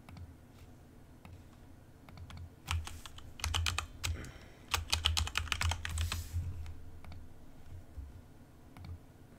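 Computer keyboard being typed on: a few single key clicks, then quick runs of keystrokes in the middle that die away to scattered clicks near the end.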